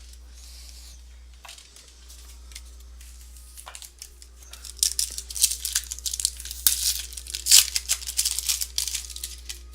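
A trading-card pack wrapper being torn open and crinkled by hand. It starts with a few light handling clicks, then about halfway through comes a few seconds of loud, dense tearing and crinkling.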